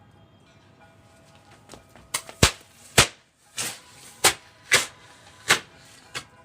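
Small firecrackers going off in a rapid string of about eight sharp pops, irregularly spaced about half a second apart, starting about two seconds in.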